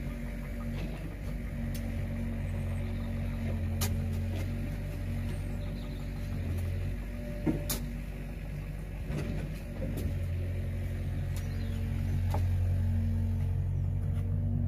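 Excavator engine idling steadily, with a few sharp knocks and scrapes of a shovel working stony soil.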